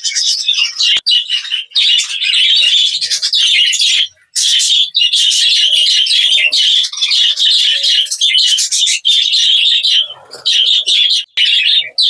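A large flock of budgerigars chattering and chirping continuously, many high overlapping calls at once.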